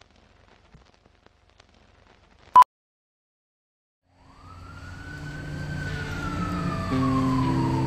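Film countdown leader with faint crackle, then a single short 1 kHz beep about two and a half seconds in, the two-pop sync beep. After a second and a half of silence, a swelling sound starts: one long tone that rises briefly and then slowly falls, like a siren winding down, over low notes that change every second or so.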